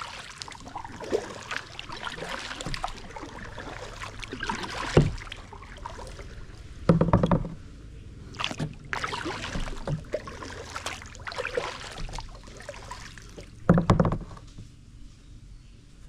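Kayak paddling: water splashing and dripping off the paddle blades stroke after stroke, with a few hollow knocks against the kayak, the loudest about seven and fourteen seconds in.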